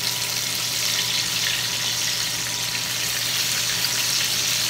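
Flour-coated chicken pieces frying in lard at about 350 °F in a skillet: a steady sizzle with occasional small pops.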